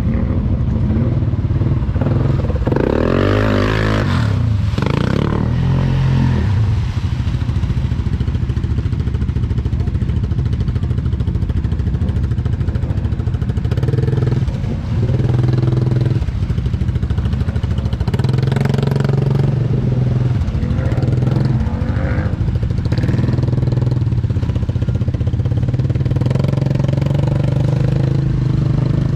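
ATV engine revving hard and running under load as the quad plows through a deep water-filled mud hole, with water splashing around it. The engine revs up and down a few seconds in, then keeps running steadily with small swells in speed.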